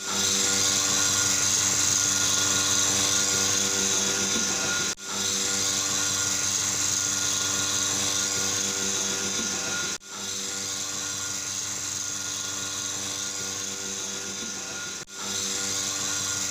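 Milking machine's vacuum pump running steadily: a constant mechanical hum with a strong hiss, dropping out for a moment three times, about five seconds apart.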